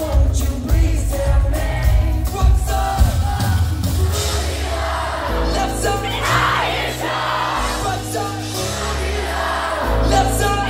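Live pop band playing with singing: a thumping drum beat for the first few seconds, then long held bass notes and synth chords. The crowd yells and cheers over it, loudest twice, a few seconds in and near the end.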